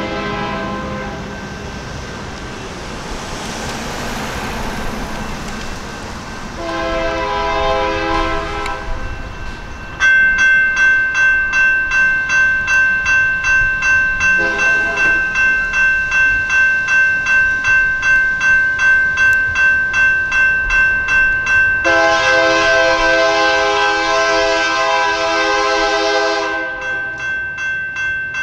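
EMD SD59MX freight locomotive's air horn sounding the grade-crossing sequence: a long blast fading near the start, another long blast, a short one and a final long blast. From about ten seconds in, the crossing's electronic warning bell rings steadily, about twice a second, under the horn.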